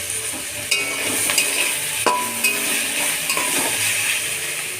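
Chicken curry sizzling as it fries in a pan, with a steady hiss. A utensil stirs it and clinks against the pan several times in the first half.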